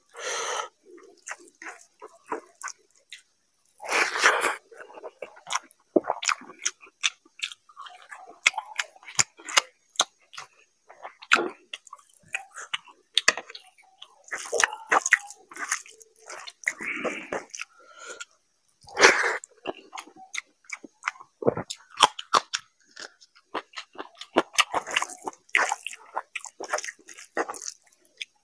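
Close-miked chewing and lip smacking of a mouthful of rice and curry eaten by hand: many short clicks and smacks, with louder smacks every few seconds.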